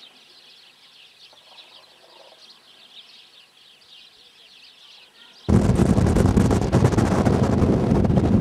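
Many small birds chirping faintly in an open field. About five and a half seconds in, this cuts suddenly to loud wind buffeting the microphone.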